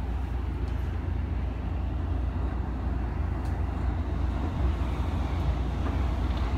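Tokyo Metro 16000 series electric train running, heard from inside the car as a steady low rumble with a rushing noise over it.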